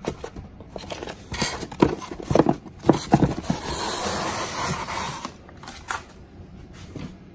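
Laser-cut acrylic frame plates clacking and knocking together as they are handled in a styrofoam packing tray. This is followed by a steady rasping scrape of styrofoam rubbing against styrofoam and cardboard as the foam insert is lifted out of the box, with a few light knocks near the end.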